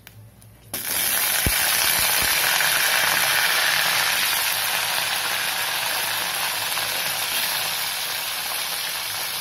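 Whole slit brinjals dropped into hot sesame oil and mustard seeds in an aluminium kadai. A loud sizzle with crackling starts suddenly about a second in and carries on steadily, with a couple of low knocks as the brinjals go in.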